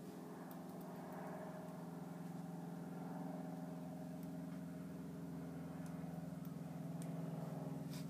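A motor's steady low hum, slowly growing louder, with a few faint clicks.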